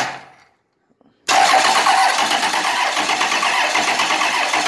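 Starter motor cranking a 1998 12-valve Cummins 5.9 L six-cylinder diesel over without it firing: a short burst right at the start, then about a second in a steady, even cranking with rapid regular beats. The engine turns over freely and sounds good spinning over.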